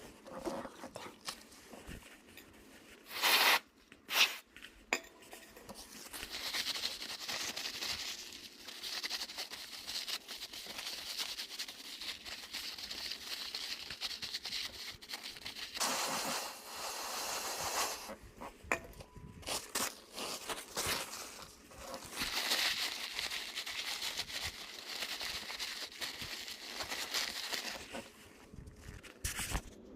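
Hands-on handling noises: two sharp knocks about three and four seconds in, then long spells of scraping and crinkling.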